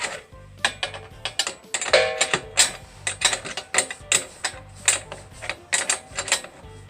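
Irregular sharp metallic clicks and clicks of hand tools, about two to four a second, while the steel sawmill track's leveling hardware is being adjusted.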